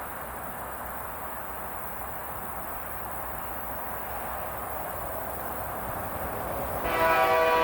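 Steady faint outdoor background noise that slowly builds, then a diesel locomotive's air horn starts blowing near the end, several notes sounding together as one chord.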